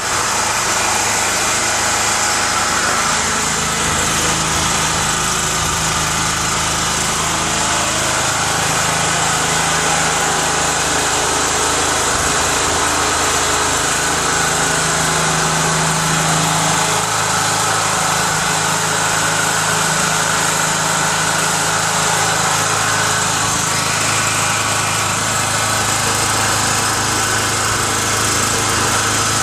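XLNT 3000 W (3.5 kVA) petrol portable generator running steadily at constant speed.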